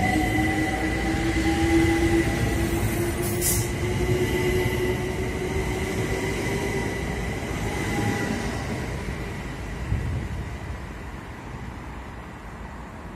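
London Overground Class 378 Electrostar electric train pulling away from the platform, its traction motors whining in tones that slowly rise in pitch as it gathers speed, then fading as it leaves. A brief hiss about three and a half seconds in.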